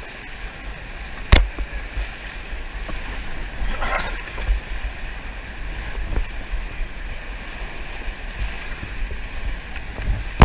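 Whitewater rapids rushing steadily, heard through a paddle-mounted action camera, with low rumbling from water and wind buffeting the microphone. A sharp knock about a second and a half in is the loudest sound.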